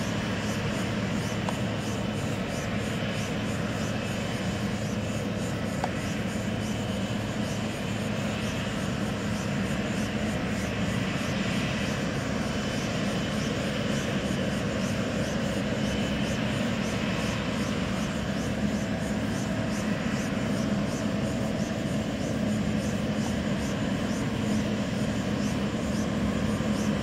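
Boeing 777 turbofan engines running at low taxi thrust: a steady hum with a faint high whine that neither rises nor falls.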